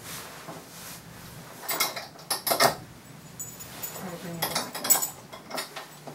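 Metal rings and hardware of a dog's collar and leash clinking as they are handled and adjusted at the dog's neck, in a few short clusters of clinks.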